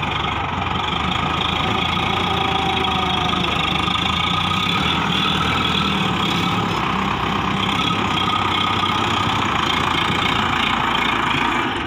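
Sonalika DI-60 tractor's diesel engine running steadily as it pulls a trolley heaped with sand through loose sand.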